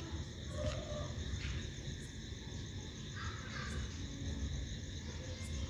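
A steel spatula stirring cooked black-eyed peas in a kadai: faint scraping with a few light clicks against the pan, over a steady low hum.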